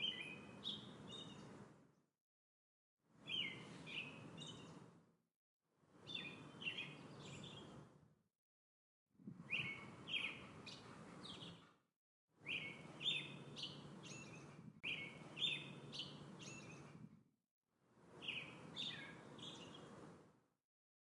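Songbird chirps: a short phrase of a few quick notes with a low background rumble, about two seconds long. It repeats about seven times, each time cut off into dead silence for about a second before it starts again.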